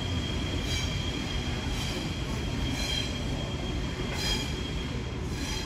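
Double-deck electric suburban train rolling slowly around a curve, its wheels squealing against the rails over a steady rumble. A thin high squeal holds throughout, with louder squeals coming back roughly once a second.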